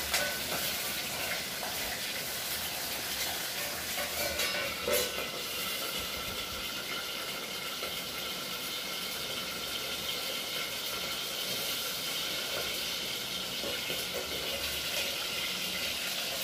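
Green chillies frying in hot oil in a pan, a steady sizzle with a steel plate held over the pan as a splash guard. A couple of sharp crackles come about four to five seconds in, from the oil spluttering.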